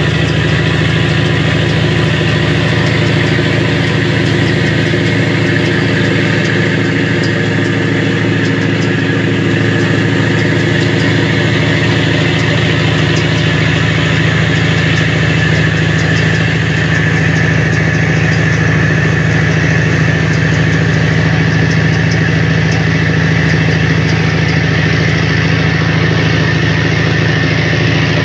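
A riverboat's engine running steadily under way: a constant low engine drone with a rush of noise over it.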